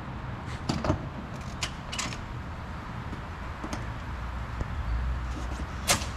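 LPG pump nozzle clicking against the car's gas filler as it is pushed on and worked to lock, about six sharp metallic clicks, the loudest near the end; it will not latch on.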